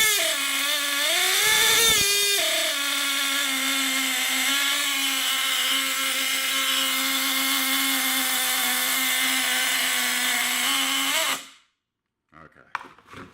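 Redcat CXP .15 nitro engine, its cylinder sleeve pinched with a hose clamp, running at high revs: the pitch rises and falls over the first couple of seconds, then holds a steady high whine before cutting out suddenly near the end. The owner judges it was running too rich.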